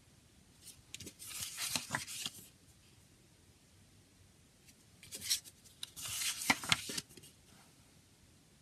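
Pages of a paper CD booklet turned by hand: two spells of paper rustling with small clicks, about a second in and again about five seconds in.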